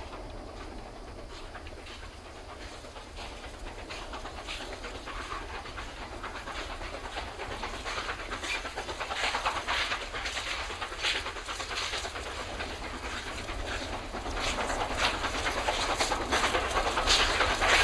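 Distant steam locomotive working hard: a rhythm of exhaust chuffs that grows steadily louder and clearer as the train approaches.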